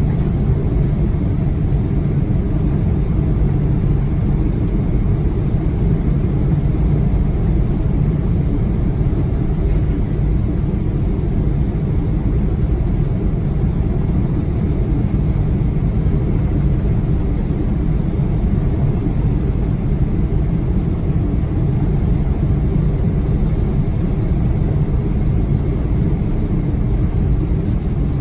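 Cabin noise of a jet airliner on its landing approach: a steady, even rumble of engines and airflow, with a faint steady hum, heard from inside the cabin.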